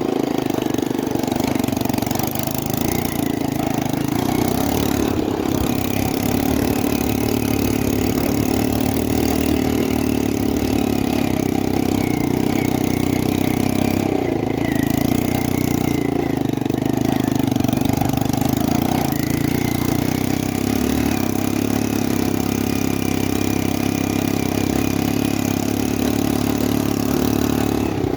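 ATV engine running steadily at a fairly even speed, with only slight changes in pitch.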